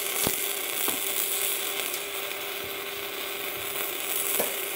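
Easymix 201 MIG welder's arc crackling and sizzling steadily as a bead is run on thin sheet metal, with a faint steady hum under it. The current is set high, at 113 A, so the arc burns holes through the thin sheet.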